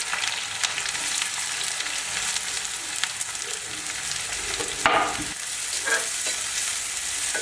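Chopped onions and timur frying with a steady sizzle in a hot karahi, stirred with a spatula, with one louder stroke of the spatula about five seconds in.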